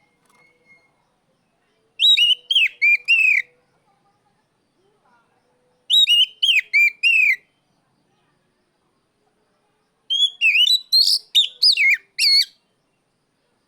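Oriental magpie-robin (kacer) giving loud, rapid phrases of swooping whistled notes, three phrases about four seconds apart. This is the challenge call that calls out a rival male.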